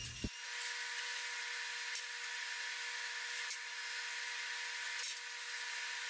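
Steady machine hum with an even hiss, with a few faint ticks about two, three and a half and five seconds in.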